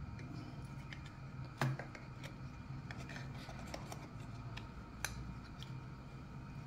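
Hinged stainless-steel karanji mould being pressed shut over a filled dough sheet and opened again on a marble board: a run of light metal clicks and taps, the loudest about one and a half seconds in and another about five seconds in.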